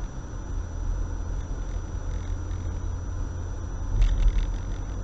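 Car engine and road noise heard from inside the cabin: a steady low rumble, with a brief louder thump about four seconds in.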